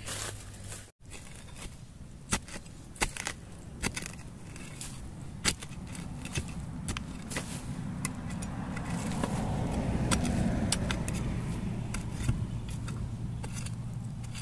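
A long-handled narrow digging spade striking and scraping into dry red soil, with scattered sharp knocks. The scraping and crumbling of soil swell louder for a few seconds past the middle, over a steady low rumble.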